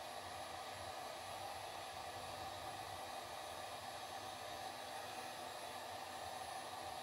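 Steady whirring hiss with no breaks or changes, like a fan or motor running.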